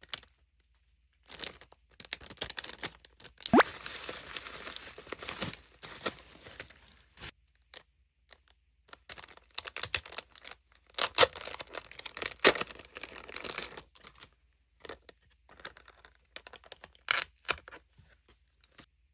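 Packaging of a goods pack being torn open and crinkled by hand, in two long stretches of tearing and rustling with one short rising squeak early in the tearing, then a few scattered crinkles and clicks near the end.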